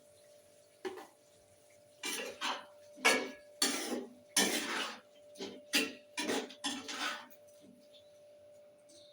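A metal spoon knocking and scraping against a pan and dishes as cooked food is handled: one clink about a second in, then a run of about ten scrapes and clinks.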